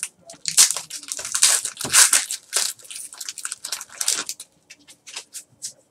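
Foil trading-card pack wrapper torn open and crinkled by hand: a dense run of crackling for about four seconds, then only a few short, scattered crackles.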